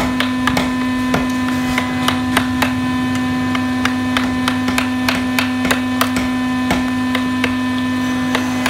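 Irregular sharp clicks of a hand chisel cutting chips from a carved hardwood board, over a steady low hum.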